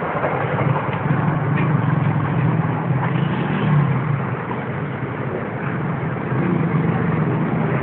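Steady road traffic noise, with vehicle engines rumbling continuously.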